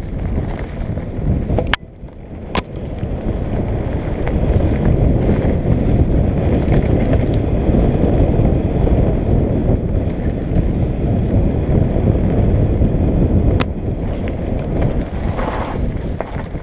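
Wind buffeting the camera microphone and tyre rumble from a mountain bike descending a dirt trail at speed, a steady low rushing noise with a few sharp knocks.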